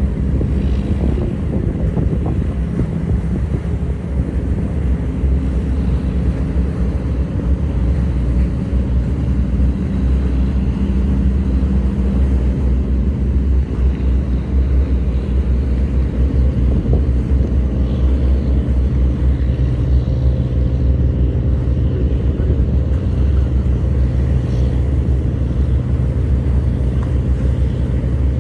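Diesel engines of squid-fishing boats running as they head out of harbour: a steady low drone made of several pitches, which grows clearer in the second half.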